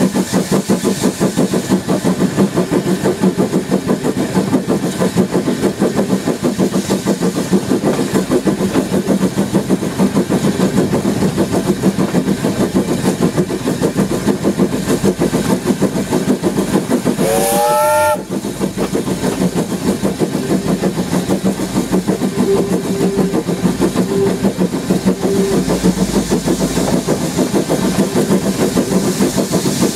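W.G. Bagnall saddle-tank steam locomotive Florence No. 2 working along the line, heard close up from its footplate, its exhaust beating rapidly and steadily. A short whistle blast, rising in pitch, sounds a little over halfway through.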